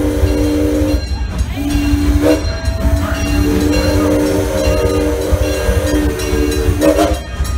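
Steam locomotive whistle sounding a chord in several blasts: one ends about a second in, a short one follows, then a long blast of about four seconds and a brief toot near the end, all over a low rumble.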